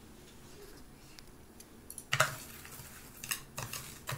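Faint room tone, then from about two seconds in a sharp clack followed by several lighter clicks: wooden chopsticks knocking against a plastic tub as seasoned breadcrumbs are stirred.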